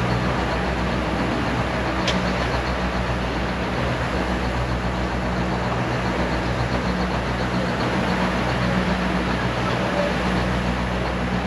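Neral–Matheran narrow-gauge toy train running, heard from aboard a coach: a steady diesel locomotive hum under the even noise of the wheels on the track.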